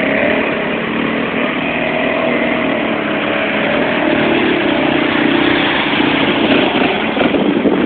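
Quad ATV engines running and revving as the four-wheelers churn through a mud hole. The engine sound grows a little louder about halfway through as one quad drives up close.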